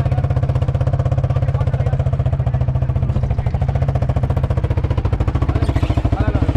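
Quad bike engine running at a steady, low speed, with a fast, even pulse throughout.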